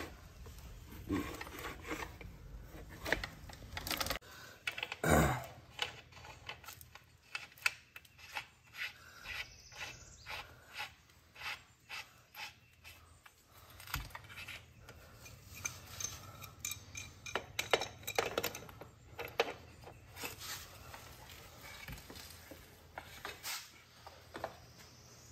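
Small metal clicks, clinks and scrapes of hand tools and axle hardware being handled while a dirt bike's rear wheel, brake and chain are fitted, with a louder knock about five seconds in.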